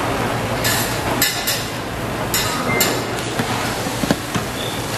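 Stainless steel ladle scraping and pressing fried rice in a frying pan in several short strokes, then knocking a few times against the pan about four seconds in, over a steady background noise.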